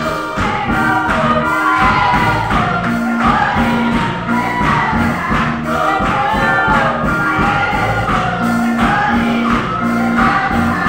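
Amplified gospel worship music: a group of voices singing a lively song over drums and bass with a steady beat.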